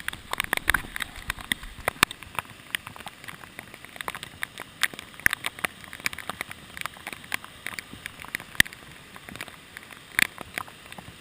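Heavy storm rain: a steady hiss packed with dense, irregular sharp ticks of drops striking close to the microphone.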